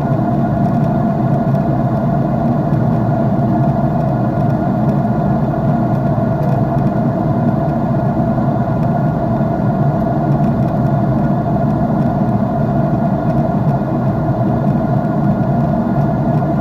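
Jet airliner cabin noise in flight: the engines' steady drone and the rush of air, a constant low rumble with a hum above it.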